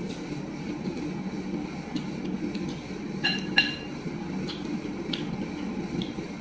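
Eating at a table with the fingers from a ceramic bowl: scattered small clicks and taps, with two sharper ringing clinks of dishware a little over three seconds in, over a steady low hum.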